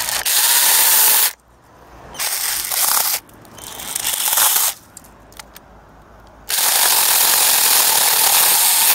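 A 24 V cordless mini chainsaw runs in four bursts as its trigger is pulled and released, its chain cutting through a thin sapling. The third burst builds in loudness, and the last and longest one stops abruptly.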